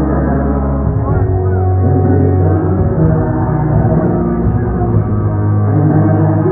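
Rock band playing live, with electric guitar and bass over a heavy, boomy low end, sustained and steady. The sound is dull and distorted, as recorded from the crowd on a phone.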